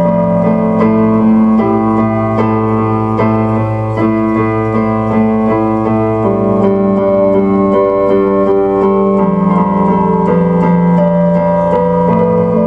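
Background music played on a keyboard: a slow tune of held chords, the notes changing every second or two.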